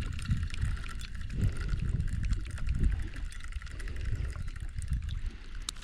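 Water lapping and sloshing around a kayak on a lake, under an uneven low rumble.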